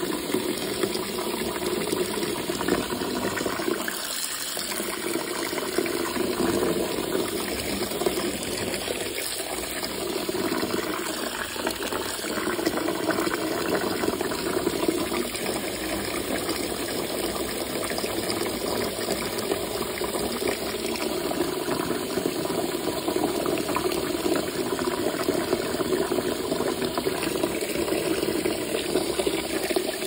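Tap water pouring in a steady stream into a plastic spin-mop bucket, splashing onto the soaked mop head as the bucket fills.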